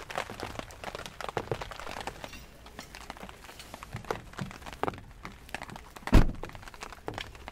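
A string of small clicks and knocks, then one loud, heavy thunk a little after six seconds in.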